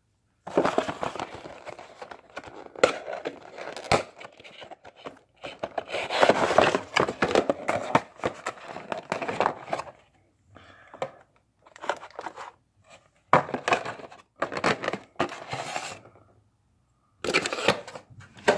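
Cardboard box and clear plastic packaging tray of a diecast model airliner being opened and handled: crinkling and rustling in irregular bursts with a few sharp clicks, a pause of about a second, and another burst near the end.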